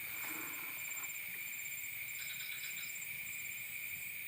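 Night insects calling: a steady high-pitched drone with short runs of rapid chirps repeating above it, over faint hiss.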